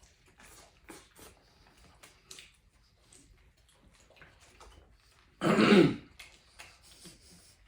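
Faint clicks and rustles of people eating, then about five and a half seconds in one loud cough, half a second long, from someone eating fast.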